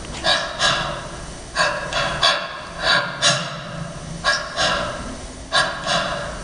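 Hand-played percussion struck in a steady rhythm: sharp strokes in pairs, a pair about every 1.3 seconds, with ringing tones held between them.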